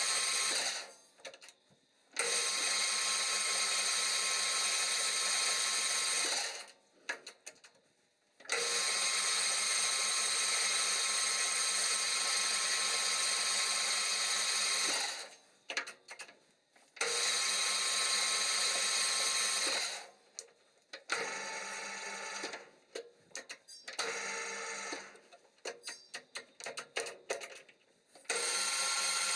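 Cyrrtec Profiturn 2865GC metal lathe running with its geared headstock and gearboxes filled with diesel as a flush: a steady machine whine that is switched off and on again several times. After about twenty seconds it runs a little quieter, then starts and stops in a row of short spurts, and it runs steadily again near the end.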